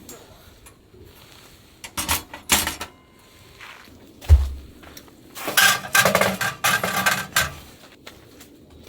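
Camping cookware being handled: a few clinks and rattles, a dull thump about four seconds in, then a longer run of clattering with a metallic ring.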